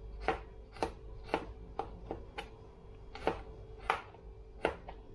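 Knife chopping garlic cloves on a plastic cutting board: about ten sharp knocks at an uneven pace.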